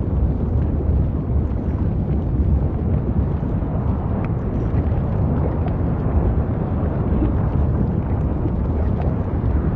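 Volcanic eruption: a deep, steady rumble with faint pops here and there.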